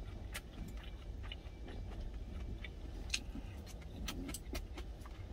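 Wooden chopsticks clicking and scraping against a stainless steel food container while eating: scattered small sharp clicks over a steady low rumble.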